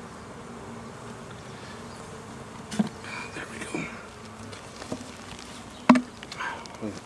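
Honey bees buzzing, a steady hum of many bees together, with a couple of sharp knocks, one about three seconds in and a louder one near the end.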